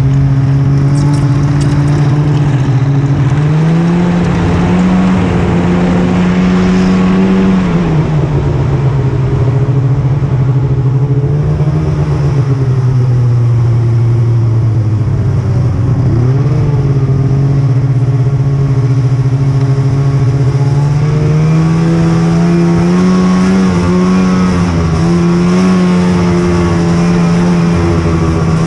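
Snowmobile engine running under way, its pitch rising and falling as the throttle is worked.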